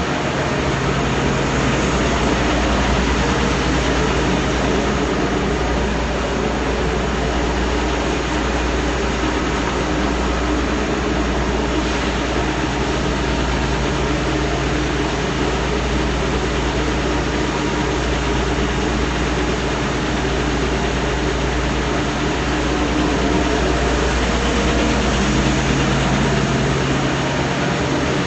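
Large wood sander running steadily through a sanding pass. A deeper rumble sets in at the start and drops away near the end.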